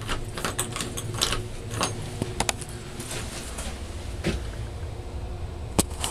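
Handling noise from a handheld camera being carried and turned: a steady low rumble with scattered light clicks and knocks, and one sharper click shortly before the end.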